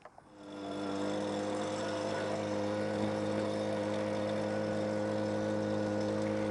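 Leaf blower running steadily at a constant speed, fading in over the first second, as it blows chaff and dust out of a round baler.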